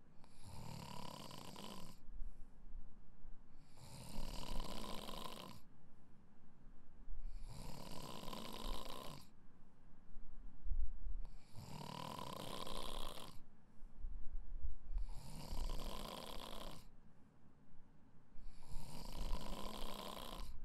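A person snoring in a steady rhythm, one snoring breath about every three and a half seconds, six in all.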